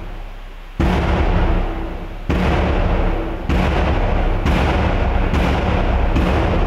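Large mosque drum (bedug) beaten in heavy, deep strokes, each ringing on for about a second, the strokes coming closer together as the beating speeds up.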